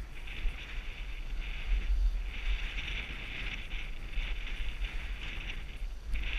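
Skis hissing and scraping over groomed snow, the hiss swelling and fading every second or two, over a steady low rumble of wind on the microphone.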